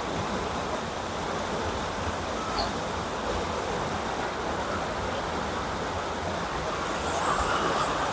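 Steady rush of a mountain river's flowing water, with a brief rustle about seven seconds in.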